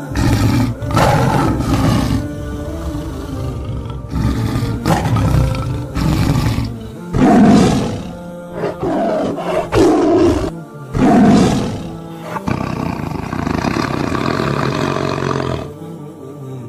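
A series of big-cat roars and growls laid over background music, the loudest calls about halfway through.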